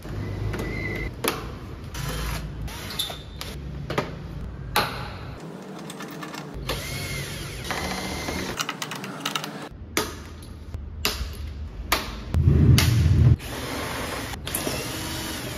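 Clicks, taps and knocks from the plastic fairing panels and fasteners of a motorcycle as they are worked loose by hand and with a screwdriver. Near the end comes a louder, low burst lasting about a second.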